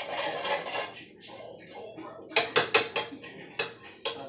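Kitchen utensils clinking and knocking against dishes: about five sharp clinks, three in quick succession a little past halfway, then two more singly near the end.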